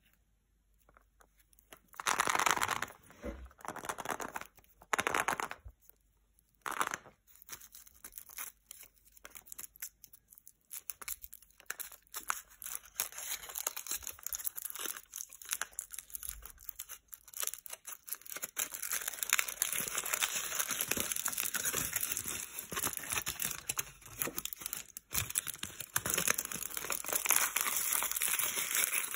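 Foil wrapper of a Kinder Surprise chocolate egg being peeled off by hand. A few short bursts of tearing and crinkling come in the first seven seconds, then steady crinkling of the foil that grows louder toward the end.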